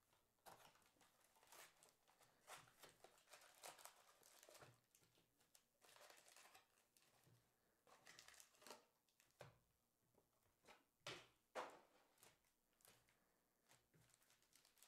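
Faint crinkling and tapping of foil trading-card packs and a cardboard box as a Donruss football hobby box is opened and its packs are pulled out and stacked by hand. It comes as an irregular string of short, soft rustles and taps, a few of them sharper about eleven seconds in.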